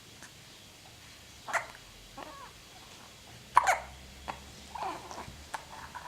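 Hiccups: two sharp ones about two seconds apart, with fainter short sounds between and after them.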